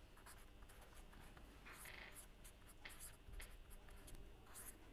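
Faint scratching of a pen on paper in a series of short strokes as handwriting is put down.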